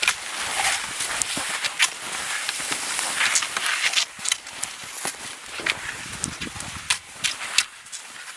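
Footsteps crunching in snow, an uneven walking rhythm of crisp steps about one to two a second.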